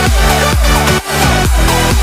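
Electronic dance music with a steady, driving beat of about two kicks a second, which drops out briefly about a second in.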